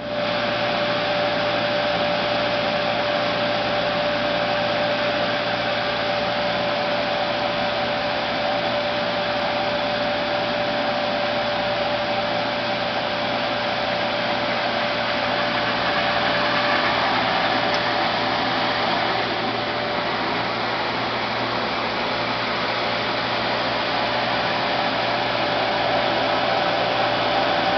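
Timesaver wide-belt sanding and deburring machine running, a steady whirring rush with one steady whine held throughout, as a steel plate is fed through it on the conveyor.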